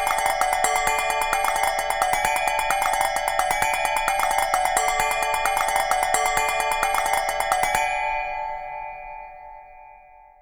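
Palm Pre ringtone played in MidRadio: a fast, busy melody of bell-like notes over a quick, even beat. It stops about eight seconds in, and the last notes ring on and fade out.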